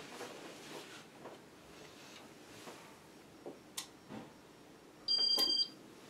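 Casablanca Ventura Inteli-Touch ceiling fan running faintly, with soft pulses. A sharp click, then about five seconds in a short electronic beep of a few steady high tones lasting about half a second: the control acknowledging the change to speed 4.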